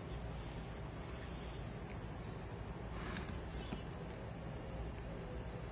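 Steady high-pitched chirring of crickets in the background over a low hum, with a faint brief hiss about three seconds in.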